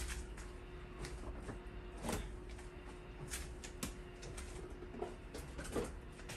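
Kitchen handling sounds: a few scattered light knocks and clicks, like cupboard doors and items being moved, over a steady faint hum.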